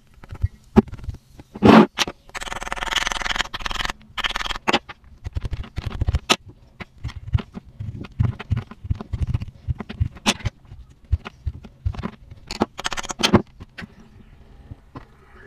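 Close-up tapping, clicking and scraping as a dinosaur dig egg is chipped open with a small tool. Many short knocks throughout, with two longer scrapes, one about two seconds in and one near the end.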